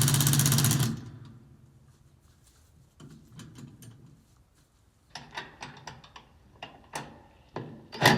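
Impact gun hammering a nut with a fast rattle, stopping about a second in; then light metallic clicks and knocks as the nut and bracket are handled, and a short loud burst near the end.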